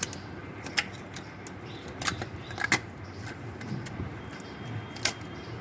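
A handful of sharp clicks and clinks, about five, spread unevenly over a steady low background hum. The sound is metal tools and parts being handled during a car engine teardown.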